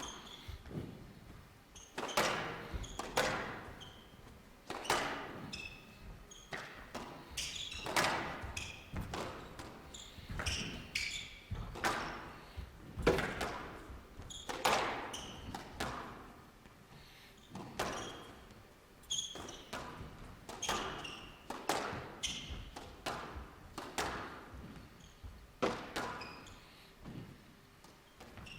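Squash rally: the ball struck by the rackets and hitting the court walls in a steady run of sharp knocks about once a second, with short high squeaks of court shoes on the floor between them, echoing in a large hall.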